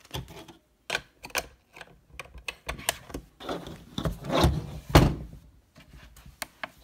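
Plastic clicks and knocks as an OXO Good Grips kitchen scale is handled, turned over and set down, with the loudest knock about five seconds in.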